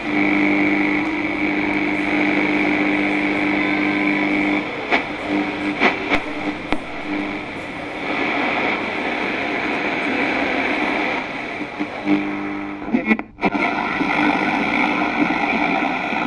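Electronic static noise with a steady electrical hum, breaking up into glitchy clicks and crackles. The hum cuts in and out, and everything drops out suddenly for a moment about thirteen seconds in.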